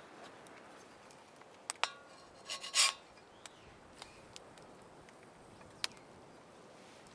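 Metal spatula scraping across a cast iron skillet while working under a pancake: one short loud rasp a little over two seconds in, with a few sharp crackles from the wood fire before and after.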